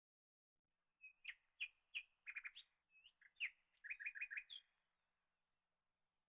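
A small bird chirping in a quick series of short, sharp calls and twitters, starting about a second in and stopping near five seconds.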